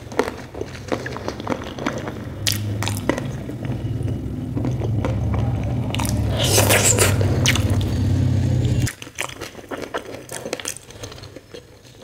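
Close-up mouth sounds of eating by hand: biting and chewing mouthfuls of dhido, potato curry and leafy greens, with wet squishes and small crunches. A low steady hum runs beneath and cuts off suddenly about nine seconds in.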